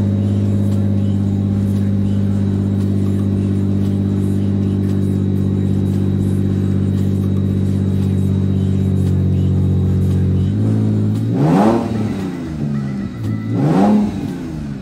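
The 2008 Infiniti G35's freshly swapped-in 3.5-litre V6 running at a steady idle, then revved twice near the end, the pitch climbing and falling back each time. These are its first runs after the engine swap.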